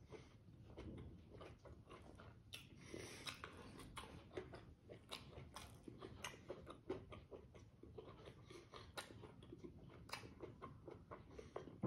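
Faint close-up chewing: irregular wet mouth clicks and smacks of someone eating, several a second.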